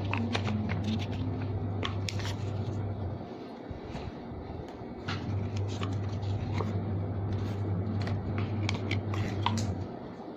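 Scattered clicks and taps of a boxed smartwatch and its packaging being handled, over a steady low hum that breaks off about three seconds in, returns about two seconds later and stops near the end.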